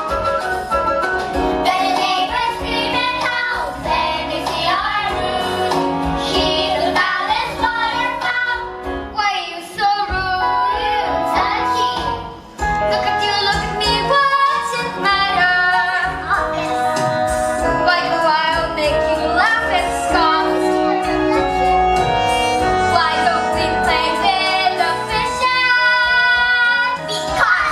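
Young voices singing a stage-musical song with instrumental accompaniment, holding a long note near the end.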